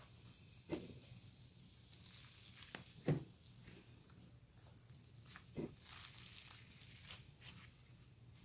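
Hands kneading sticky foam-bead slime with white glue mixed in: faint squishing and crackling, with three soft thumps about two and a half seconds apart.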